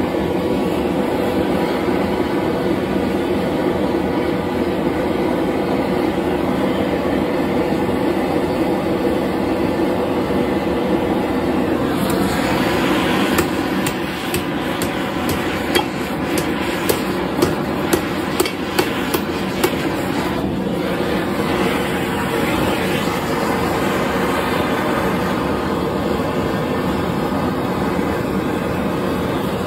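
Handheld propane torch burning with a steady hiss, heating a nail red hot. In the middle comes a quick run of about eight sharp hammer blows on the hot nail, bending it over the anvil foot.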